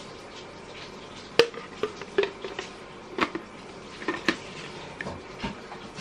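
Sharp plastic clicks and knocks from handling the clear dust container of a Philips 3000 Series cordless vacuum cleaner, about nine irregular taps, the loudest about a second and a half in.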